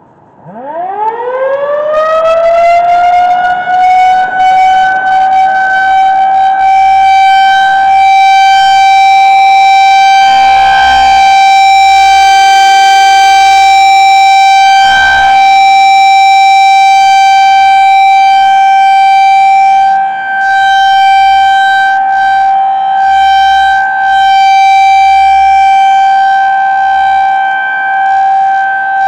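Federal Signal 2001-SRN rotating electromechanical outdoor warning siren winding up from silence over the first couple of seconds, then holding one steady, very loud, high-pitched tone, swelling and dipping a little in loudness. It is being sounded for its routine monthly test.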